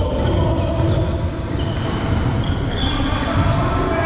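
Indoor volleyball court sounds in a large hall: a run of short high squeaks, typical of shoes sliding on the court floor, over the hall's steady low rumble.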